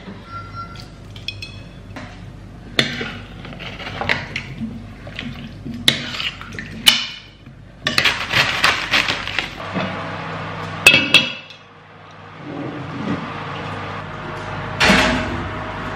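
A metal spoon clinking and scraping against a red enamelled casserole pot and a glass sauce jar as curry sauce is spooned in and stirred, with several sharp clinks, some of them ringing briefly. A heavier knock comes near the end.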